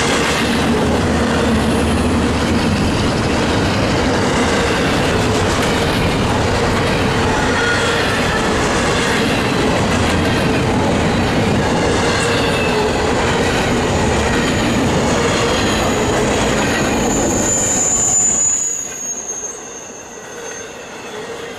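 Norfolk Southern intermodal freight train rolling past at close range, a loud, steady rumble of cars and wheels with squealing from the wheels on the rail. A high wheel squeal rises out of it near the end, and the overall sound drops sharply just after.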